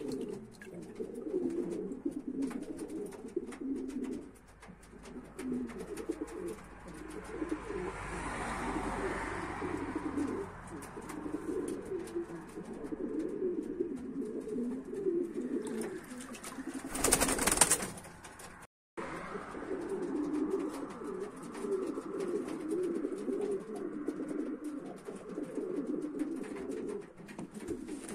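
Many domestic pigeons cooing continuously in a loft during breeding season. About seventeen seconds in, a brief, loud burst of noise is heard, followed by a moment of silence.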